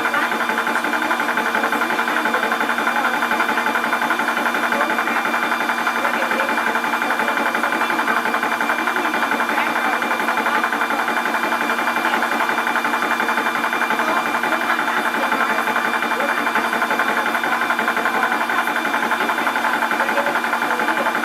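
Portable 12 V high-pressure PCP air compressor running steadily with a fast, even pulsing and a faint steady whine, pumping up a small 0.25 L air tank.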